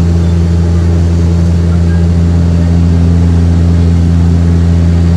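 Airliner cabin noise during the climb after takeoff: the engines droning with a steady low hum of constant pitch over a hiss of rushing air.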